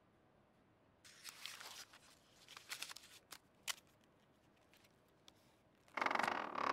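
Papers or a file folder being handled and rustled, with a few light clicks, then a short, louder rasping sound near the end.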